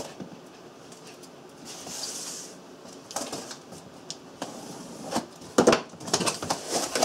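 Small cardboard box being opened by hand and its packaging handled: a brief hiss about two seconds in, then a run of clicks and rustles of cardboard and packing, loudest a little before the end.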